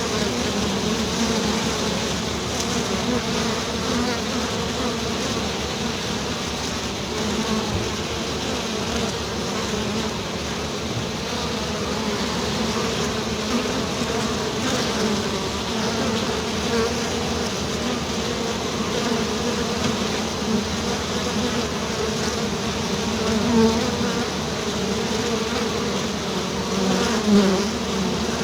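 Dense, steady buzzing of a swarm of honeybees, many wingbeats blending into one low drone, with brief louder swells as bees pass close.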